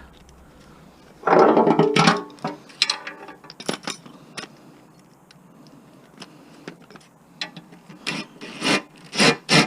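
Hand tools and metal mower parts clicking, knocking and scraping during disassembly, with a louder spell of scraping about a second in and a quick run of knocks near the end.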